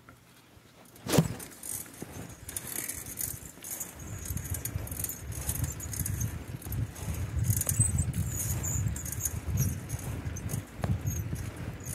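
A sharp clack about a second in, then, with the bicycle under way on a paved path, a low wind rumble on the handlebar-mounted microphone and a light metallic jingling rattle from the bike.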